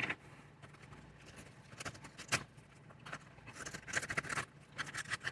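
A leather strap being pulled by hand through slots cut in a leather knife sheath: soft, irregular scuffs and small clicks of leather rubbing on leather.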